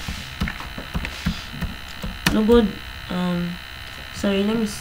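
Computer keyboard typing, scattered key clicks over a steady electrical mains hum in the recording.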